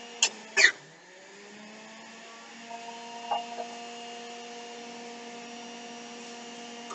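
Electric juicer motor running with a steady hum. Two sharp knocks come about half a second in as produce is pushed into the chute; the motor's pitch drops under the load and then climbs back up over the next couple of seconds, with a few lighter knocks a little later.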